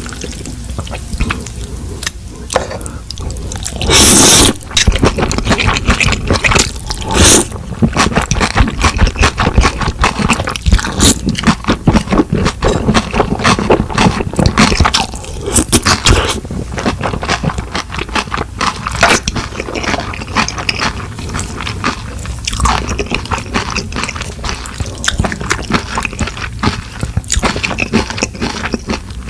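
Close-miked eating sounds: wet chewing and smacking of food, in a dense run of small clicks, with a few louder noisy bursts, the loudest about four seconds in.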